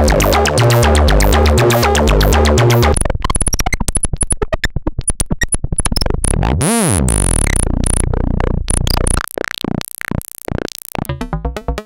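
Make Noise Eurorack modular synthesizer patched through the QMMG quad multimode gate: a dense pulsing sequence over a repeating bass figure, which breaks off about three seconds in into rapid clicking pulses. Around the middle a tone glides down and back up, and the clicks thin out to sparse irregular ones near the end.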